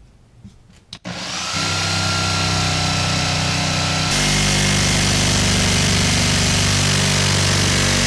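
Cordless jigsaw with a diamond blade sawing through a plaster wall. It starts up about a second in and then runs at a steady pitch, changing character slightly about four seconds in.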